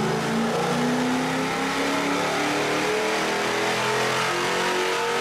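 Ford Mustang GT's 4.6-litre V8, fitted with a BBK cold air intake, making a full-throttle pull on a chassis dyno. The engine note rises steadily in pitch as the revs climb.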